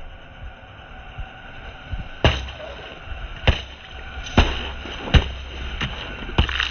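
Car tyre rolling slowly over a row of liquid-filled plastic bottles, bursting them one after another. There are about five sharp pops roughly a second apart, starting about two seconds in, over a low rumble from the tyre.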